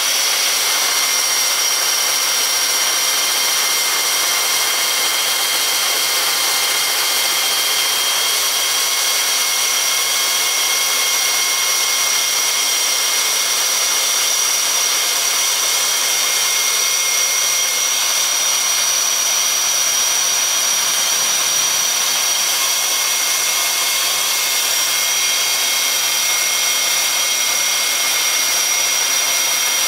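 Electric chainsaw mill with a 3/8-inch ripping chain sawing lengthwise through an oak log on its automatic feed: a loud, steady whine of motor and chain with several high, constant tones.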